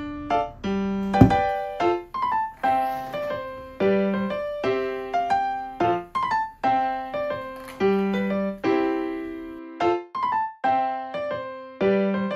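Background piano music: a gentle melody of single struck notes, each fading away, over a repeating low note. A single sharp thump about a second in.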